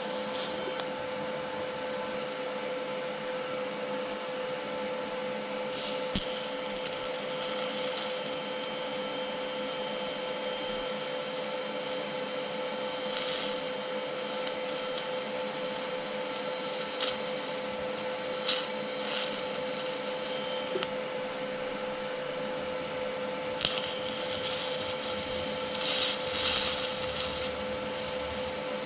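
A steady machine hum with one constant tone and a few brief clicks scattered through it.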